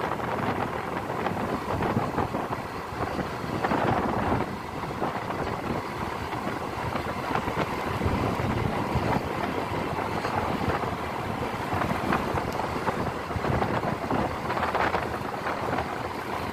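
Wind rushing over the microphone on a moving motorbike, with the bike's road and running noise underneath, steady and unbroken.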